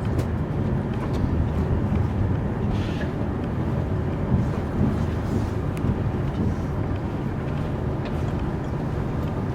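Steady low rumble and noise of a TGV Lyria high-speed train running, with a few faint clicks.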